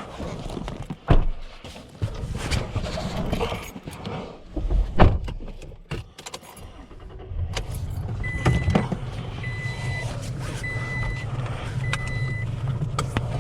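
Pickup truck being got into and started: keys jangle and the door and cab knock and click, then about seven seconds in the engine starts and idles with a steady low hum. Over the idle a chime beeps four times at an even pace.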